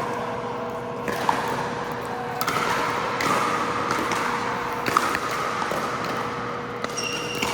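Pickleball paddle hits and ball bounces on an indoor court: a few sharp pops, the loudest about a second in and about five seconds in, over a steady hum and hall noise.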